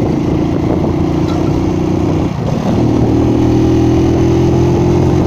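Motor vehicle engine running steadily on the move, with a brief drop in level and pitch about two and a half seconds in, then running on a little louder.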